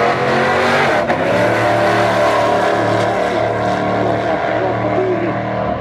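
Two drag-racing cars launching off the line and accelerating hard down the strip, engines at full throttle, with a sharp crack about a second in.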